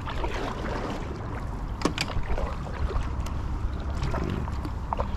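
Kayak paddling: the paddle blades dip and splash through calm water, with a couple of sharp clicks about two seconds in, over a low steady rumble.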